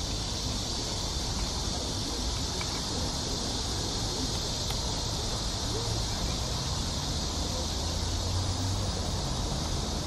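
Cicadas singing together in a continuous high-pitched buzz that does not let up, with a low rumble underneath that is stronger in the second half.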